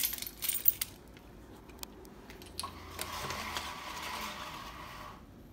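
Horizontal window blind slats clicking and rattling against each other as they are pushed apart, mostly in the first second. After that a steady hiss runs for about two and a half seconds and stops abruptly.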